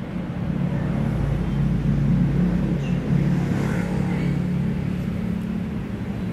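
A steady low engine hum, growing louder about a second in and easing slightly toward the end.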